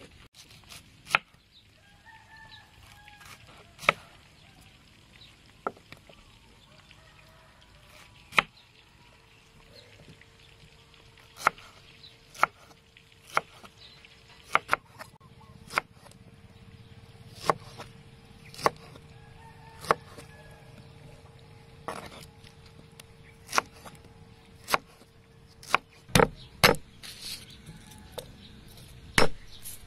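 A large knife cutting pineapple on a wooden chopping board: sharp, separate knocks every second or so, with a quick run of them near the end. Chickens cluck in the background.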